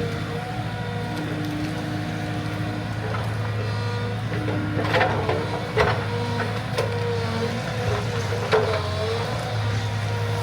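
An engine running steadily, with a few sharp clanks in the middle.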